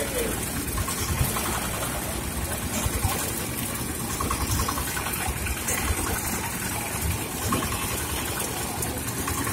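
Belt-driven sugarcane juicer machine running steadily, its ribbed steel rollers crushing sugarcane stalks fed through by hand.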